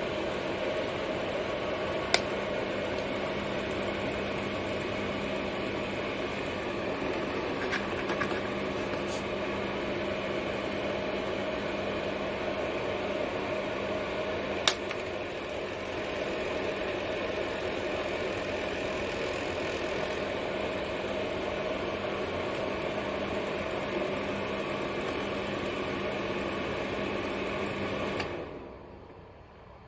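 Pro Breeze 2000W mini ceramic fan heater running, its fan giving a steady whirring rush with a constant hum, described as a little noisy. Two sharp clicks sound about 2 and 15 seconds in, and the fan noise dies away near the end.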